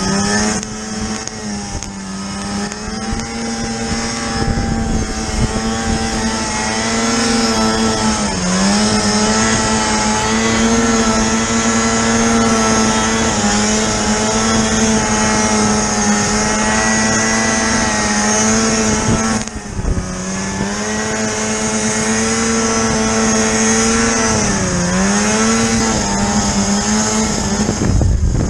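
Snowmobile engine running hard at high, steady revs, its pitch dipping briefly a few times as the throttle eases and comes back on.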